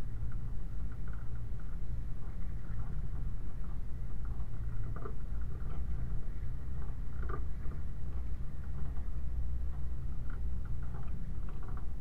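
Land Rover 90 driving slowly over a rough, wet, stony track, heard from a camera on its rear: a steady low rumble of the vehicle running, with frequent irregular rattles and knocks as it jolts over the stones.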